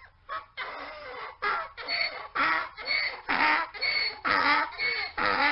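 Mule braying: after a brief pause, a rapid run of short pitched honking calls, about two a second.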